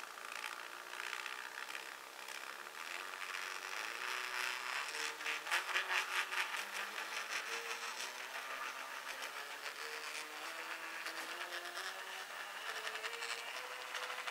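Small stepper motor of a converted KATO Chibiloko model steam locomotive running its two-coach train slowly along the track. It makes a faint whine that jumps up and down in pitch in distinct steps, since its pitch follows the motor's step rate and so the speed. Over it comes a light rattle of the little wheels on the rails.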